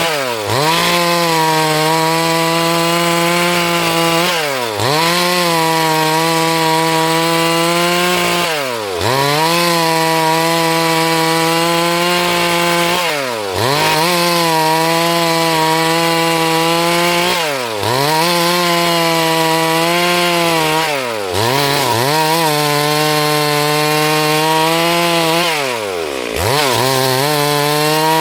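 Two-stroke chainsaw running at high revs while milling lumber from a log. Its pitch dips sharply and climbs back about every four seconds.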